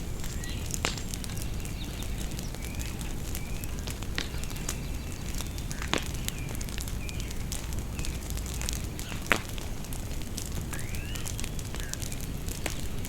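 Bonfire crackling with scattered sharp pops, the loudest about nine seconds in, over a steady low rumble. Birds chirp now and then.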